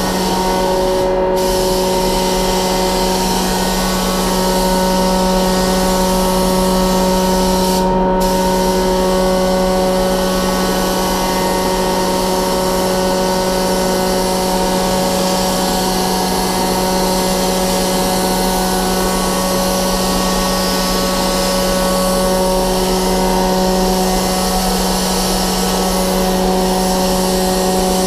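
Spray-booth ventilation running with a steady hum, under the hiss of a compressed-air gravity-feed paint spray gun spraying a car body. The hiss cuts out briefly twice, about a second in and around eight seconds in, as the trigger is let off.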